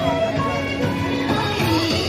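Loud music with a singing voice, running without a break.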